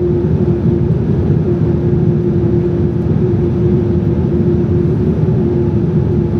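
Boeing 787 cabin noise: a steady rumble of engines and airflow, with a constant low hum running through it.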